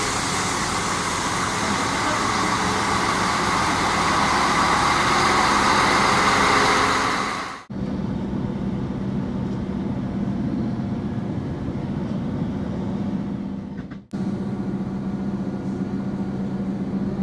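Passenger train running on the rails, heard on board. A loud, even rushing noise comes first, then an abrupt cut about halfway through to a steadier hum with a low steady engine tone, with another abrupt cut near the end.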